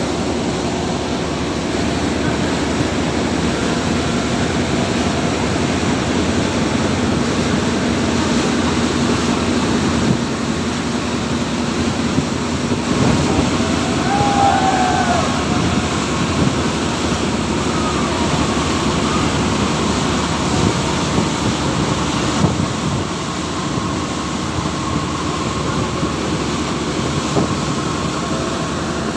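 A river passenger launch under way at speed: the steady rush of its churning wake water mixed with the continuous hum of its engine.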